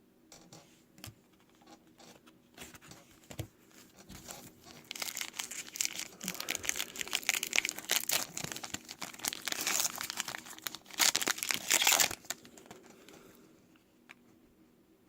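Foil trading-card pack wrapper being torn open and crinkled. There are a few light clicks at first, then dense crackling in the middle stretch that dies away near the end.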